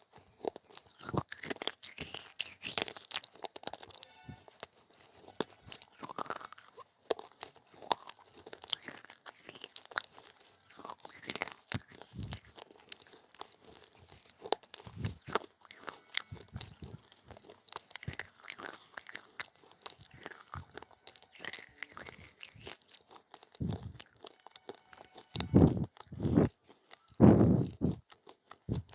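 Close-up biting and chewing of hard, brittle pieces of coloured clay pot: a dense run of sharp, crisp crunches, with a few louder, heavier bites near the end.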